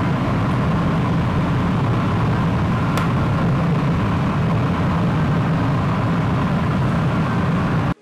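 Oil-fired crucible furnaces burning, a loud, steady rushing noise with a deep low rumble. A single sharp click comes about three seconds in, and the sound cuts off just before the end.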